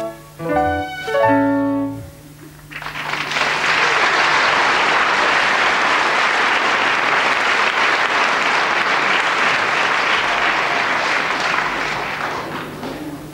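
The last chords of the song's musical accompaniment, then a theatre audience applauding for about ten seconds, fading away near the end.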